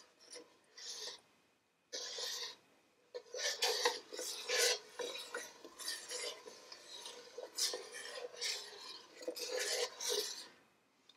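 Long stainless steel spoon stirring thick, creamy corn chowder in a stainless steel stockpot, scraping along the bottom and sides in a steady run of strokes that starts about two seconds in. Cheese slices are being stirred in to melt and thicken the soup.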